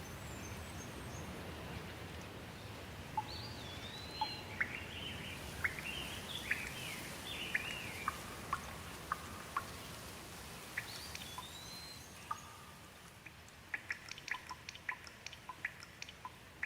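Steady rain with a bird calling over it, a run of quick, sliding chirps in the first half and again about eleven seconds in. Near the end the rain eases and scattered drops tick and drip.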